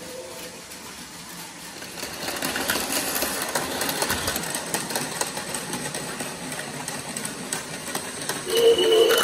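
Battery-powered Plarail Advance toy trains running on plastic track: a steady small-motor whir and gear buzz with many small wheel and rail-joint clicks, growing louder about two seconds in. Shortly before the end a pitched tone joins in.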